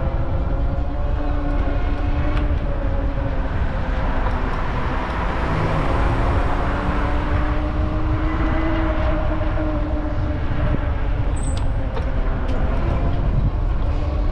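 Riding noise from an EUY F6 electric bike on city pavement: a steady low wind-and-road rumble with a faint hum that drifts slightly in pitch. A car passes about midway through.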